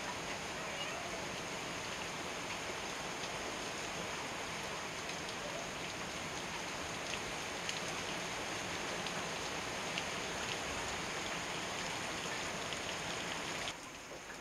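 Heavy downpour: a steady hiss of rain with scattered drops ticking on hard surfaces close by. The rain sounds a little quieter near the end.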